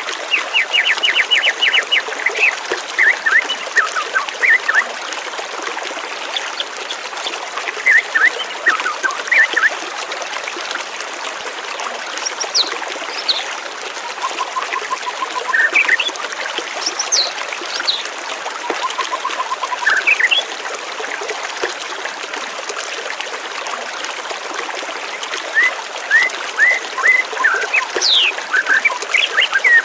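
Steady flowing water with small birds chirping over it in bursts of quick, sharp notes and short trills, coming and going several times.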